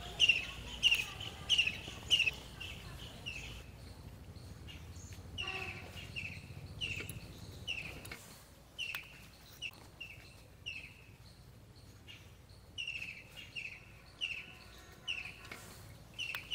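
A bird calling over and over in short, falling chirps, about two or three a second, loudest in the first couple of seconds and then in groups with short pauses.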